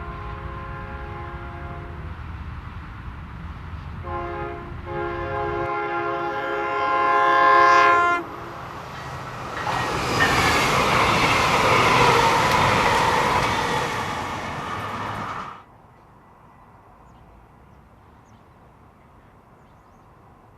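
Train horn sounding a chord in two blasts, the second one longer and growing loud. A train then passes close by with a dense rush of wheel and rail noise, which cuts off suddenly about 15 seconds in.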